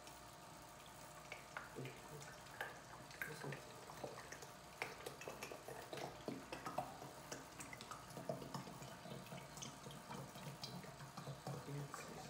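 Vegetable oil being poured from a large plastic bottle through a plastic funnel into a plastic drinks bottle: a faint, irregular trickling with small drips and ticks.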